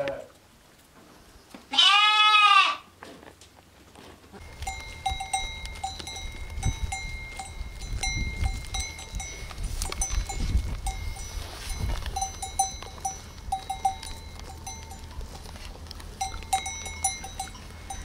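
A lamb bleats once, loud and arching in pitch, about two seconds in. From about four seconds on, bells on grazing sheep clink and ring irregularly over a low rumble.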